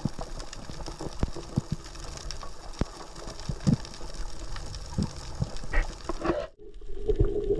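Underwater recording during a free dive: scattered sharp clicks and knocks, a few a second, over a low hiss. The sound drops out briefly near the end.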